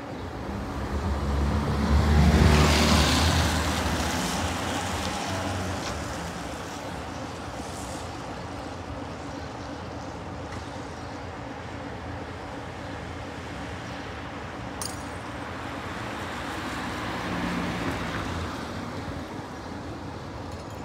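BR Class 24 diesel locomotive's Sulzer engine running at idle. The engine noise swells loudly about two seconds in and fades away over the next few seconds, with a smaller swell near the end.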